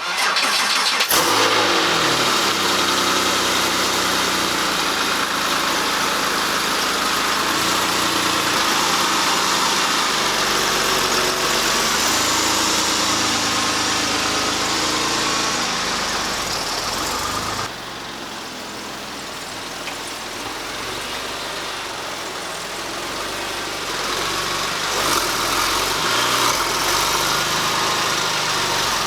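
Porsche 996 flat-six engine cranking and catching about a second in, then running with some changes in revs. The sound drops abruptly a little past halfway, and the engine keeps running after that.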